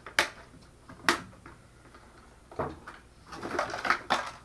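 Two sharp snips about a second apart as the zip ties holding the RC crawler to its box are cut, then a knock and a second or so of plastic rattling and rustling as the truck is pulled free.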